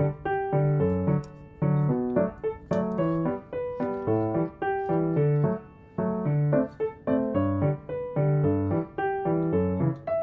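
Background piano music: a steady run of plucky keyboard notes over a repeating bass line.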